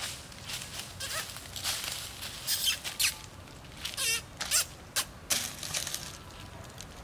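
Bare feet crunching through dry fallen leaves, with a few short, wavering animal calls about halfway through.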